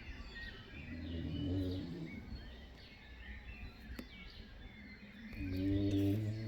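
A sleeping woman snoring: two low snores about four seconds apart. Birds chirp throughout.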